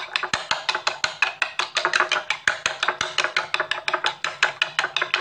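Metal spoon beating raw eggs in a small ceramic bowl, clinking against the bowl in fast, even strokes, about seven or eight a second.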